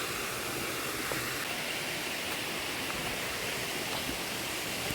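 Steady rushing of a waterfall, an even roar of falling water with no breaks.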